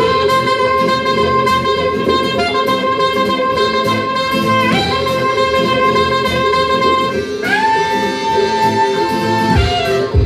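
Saxophone solo playing long held notes over steady backing music, gliding up into a new sustained note about three quarters of the way through.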